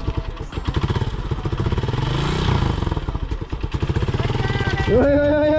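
Sport motorcycle engine running at idle, blipped once about two seconds in so that the pitch rises and falls back. Near the end, a held melodic tone of music comes in over it.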